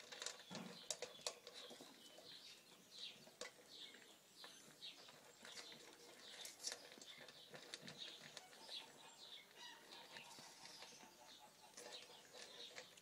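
Faint crunching and clicking of a dog eating dry kibble from a steel bowl, with many short, high chirps scattered through.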